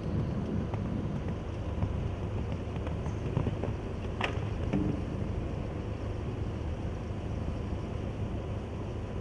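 Steady low outdoor rumble with no speech or music, and one sharp click about four seconds in.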